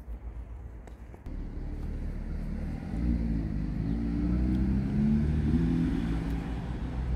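Engine of a motor vehicle running nearby, a low rumble that swells about a second in and grows louder again about three seconds in.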